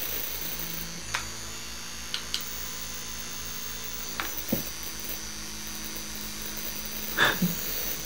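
Dual plasma arc of an electric arc lighter buzzing faintly and steadily between its electrodes, with a few light clicks. The arc is audible though the flame-free spark is hard to see.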